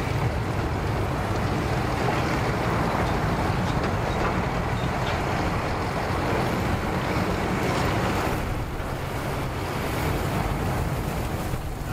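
Steady wind noise on the microphone over a low outdoor rumble, with no clear engine note or splash standing out.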